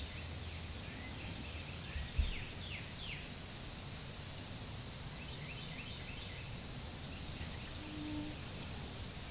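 Outdoor field-edge ambience: a steady high-pitched whine under faint, short descending bird chirps, with a low soft thump about two seconds in.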